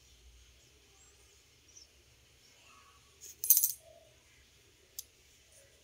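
A brief metallic jingle about three and a half seconds in, then a single sharp click near the end; otherwise the room is quiet.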